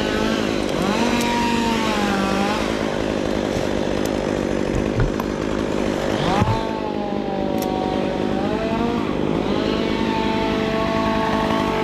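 Two-stroke chainsaw cutting wood, its engine speed rising, holding and dropping back several times, then running steady near the end. There are a couple of short knocks midway.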